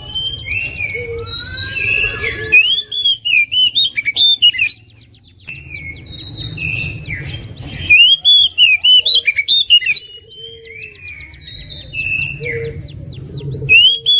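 Oriental magpie-robin (kacer) singing loudly. It gives runs of rapid high ticking strokes and loud slurred, warbled whistles in three bursts, with short pauses between them.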